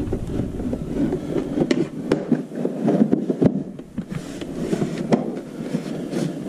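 Scattered clicks and knocks with handling noise as the scooter's plastic body panels and wiring are worked back into place.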